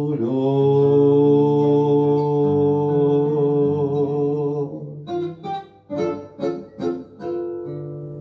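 A man's voice holding the last sung note of a tango with vibrato for about four seconds over guitar accompaniment. The accompaniment then closes with about six sharp plucked chords and one final chord left ringing as it fades.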